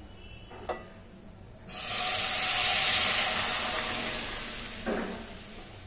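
Boiled moong dal with bottle gourd poured into hot mustard oil in a stainless-steel kadai: a sudden loud sizzle that starts about two seconds in and slowly dies away, with a light knock near the end.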